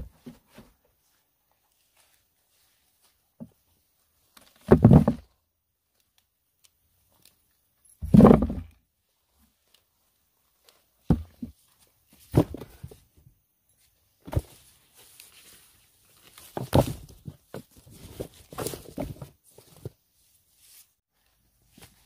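Two heavy thumps a few seconds apart, then a series of lighter knocks with rustling between them.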